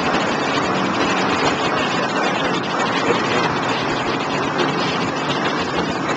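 Steady noise of a Contender 27 center-console boat under way offshore: its outboard engine running, mixed with wind and water noise.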